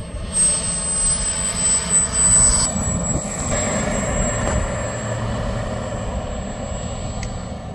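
KingTech K-210 G4+ model jet turbine whining at low throttle as the RC jet rolls along the runway, a high, steady whine that sinks slightly in pitch. Under it a rushing noise that is loudest in the first few seconds.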